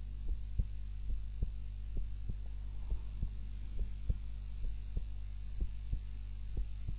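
Human heartbeat of a person asleep, steady paired lub-dub beats about once a second, over a low steady hum.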